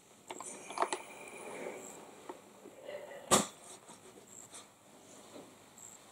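Steam iron sliding and pressing over a cotton patchwork block on a padded ironing board: soft fabric rustling, with one sharp click a little past halfway.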